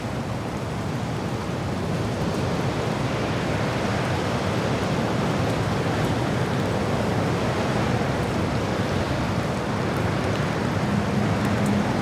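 Recorded wind blowing as a steady rushing noise, swelling a little over the first few seconds.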